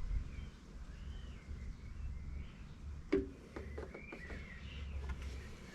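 Birds chirping over a low, steady rumble, with a sharp clunk about three seconds in and a few lighter taps after it.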